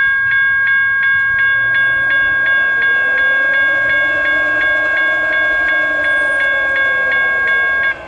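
Railroad grade-crossing warning bell ringing, struck about three times a second over a sustained ring, then stopping abruptly near the end. A fainter, lower tone swells and fades in the middle.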